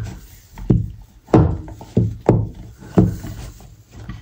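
Dull knocks and thumps on a wooden pastry board as dough is handled, about six in a few seconds, irregularly spaced.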